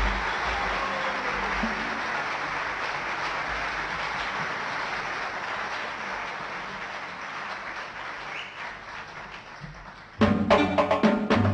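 Audience applause fading away over about ten seconds. Near the end, hand percussion led by a riq breaks in loudly with a quick run of sharp strikes and low drum beats.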